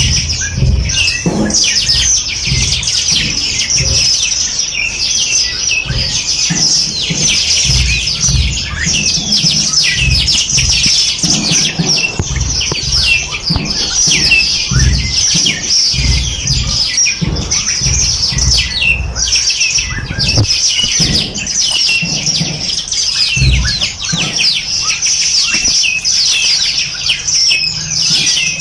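A dense chorus of many small songbirds chirping and trilling rapidly and without pause, with low rumbling underneath at times.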